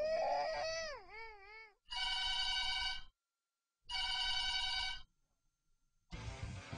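An infant wails, the cry wavering up and down and fading out within two seconds. Then a telephone rings twice, each ring about a second long, and guitar music comes in near the end.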